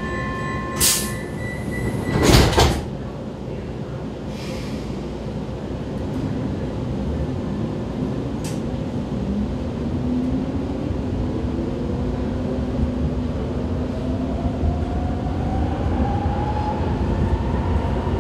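Vienna U-Bahn train at a station: a brief warning tone, then the sliding doors closing with two loud thumps about a second and a half apart. Over a steady rumble, the train's motors then whine in a slowly rising pitch as it pulls away and gathers speed.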